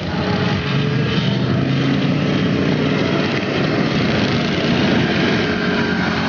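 Engines of several racing ride-on lawn mowers running together at speed, a steady mechanical drone with slightly wavering pitch.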